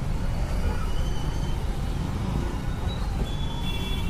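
Steady street traffic noise from a busy road, an even low rumble with a few faint high tones now and then.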